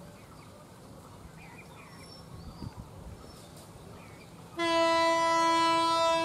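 Diesel locomotive's horn sounding one steady blast of a little under two seconds, starting near the end, over the low rumble of the slowly approaching locomotive; a few faint bird chirps before it.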